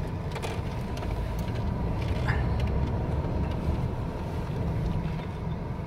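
A moving car's engine and tyre noise heard inside the cabin: a steady low rumble.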